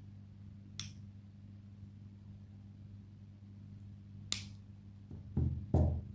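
Nail clipper snipping fingernails: a faint click about a second in and a sharp snap about four seconds in, then two dull thumps of handling near the end, over a steady low hum.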